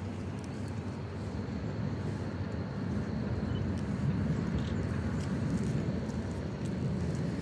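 Tram running, a steady low rumble that grows a little louder about three seconds in.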